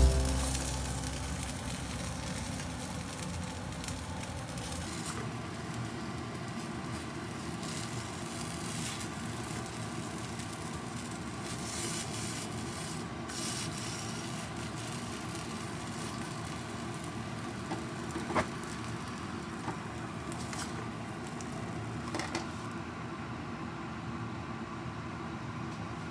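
Potato cakes sizzling in oil in a nonstick frying pan: a steady hiss with fine crackling, and a few sharp clicks of the spatula against the pan and plate about two-thirds of the way in.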